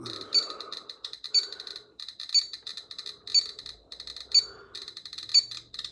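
GQ GMC-500+ Geiger counter clicking rapidly and irregularly as it detects beta radiation from uranium ore held against it, at about 600 counts per minute and climbing. A louder, higher beep repeats about once a second over the clicks.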